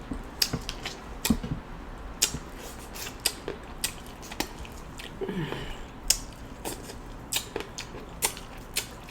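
Close-miked wet chewing and lip-smacking of someone eating saucy seafood boil, a stream of sharp mouth clicks at an uneven pace, with a short murmur from the voice about halfway through.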